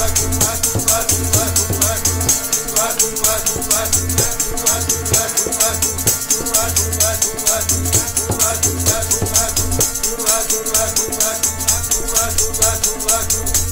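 Sikh keertan music: a harmonium sounding held notes over a tabla, with a jingling hand percussion keeping a fast, even beat.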